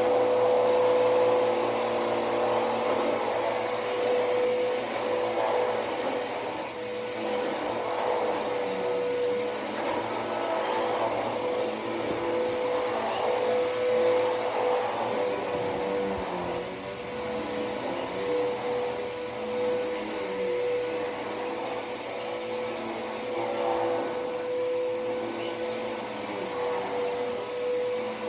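Hoover vacuum cleaner running continuously: a steady motor whine over a rush of air that wavers a little in level.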